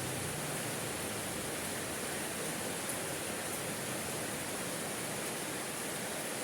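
Steady rainfall, an even hiss with no distinct drops or breaks.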